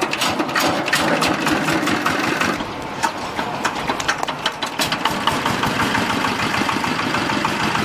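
Industrial machine running steadily, with many irregular clicks and knocks over a dense mechanical noise; the sound cuts off suddenly at the end.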